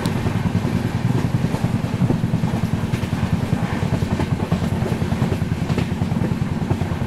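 Passenger train running at speed: a steady low rumble with fast, uneven pulsing.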